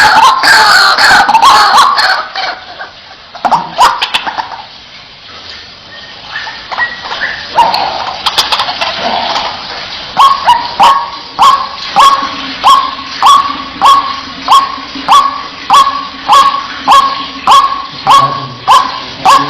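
White-breasted waterhen calling: a loud rush of harsh calls at first, then after a quieter stretch a steady, monotonous run of short 'wak' notes, about two a second.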